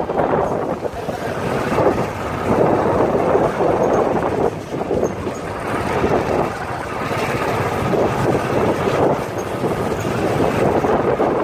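Motorcycle riding slowly along a dirt lane: wind buffeting the microphone over the running bike, a steady rushing noise that swells and dips.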